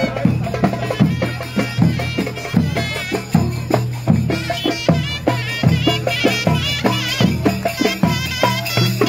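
Live Egyptian street band playing folk music: a large bass drum beating a steady rhythm under a shrill, wavering melody from a reed pipe (mizmar).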